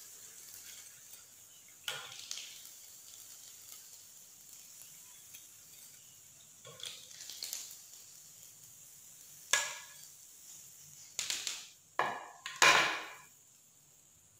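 Potato kababs frying in shallow oil with a low sizzle, while metal tongs clack against the frying pan and plate a few times as the kababs are lifted out; the loudest clatters come in a quick cluster near the end.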